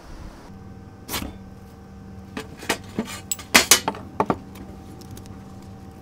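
An irregular run of sharp knocks and clinks, about nine in three seconds and loudest in the middle, over a faint steady hum.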